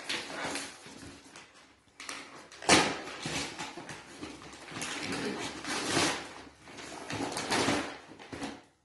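Rustling and crinkling of a gift bag and its wrapping as a present is pulled out, with one sharp crackle about three seconds in.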